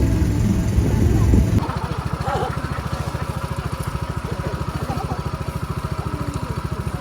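A loud low rumble cuts off about a second and a half in. A small engine idling with a steady, rapid low pulse takes over.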